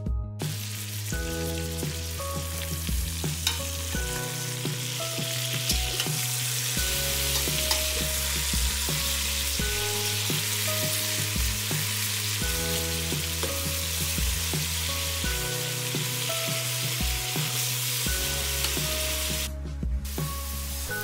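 Diced onions sizzling as they fry in hot clarified butter in a stainless steel pot, stirred with a wooden spoon. The sizzle starts just after the beginning and drops out briefly near the end.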